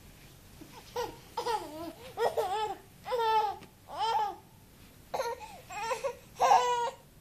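Babies babbling to each other in a string of short, high-pitched calls and squeals, one after another.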